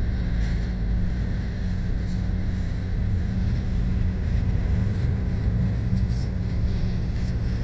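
A small Toyota car driving along a paved road, heard from inside the cabin: a steady low rumble of engine and tyres.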